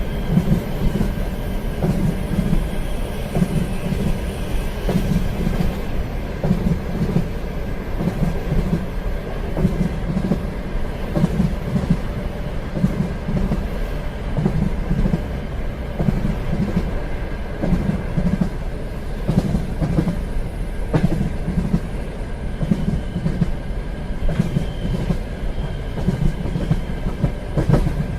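Train running along the rails: a steady rumble with a rhythmic clickety-clack of the wheels over the rail joints.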